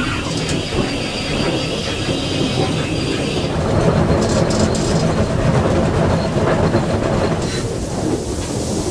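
Steam locomotive running on the line, heard from the footplate: a steady rumble of wheels on rail with rail-joint clatter, and a high hiss that stops about three and a half seconds in.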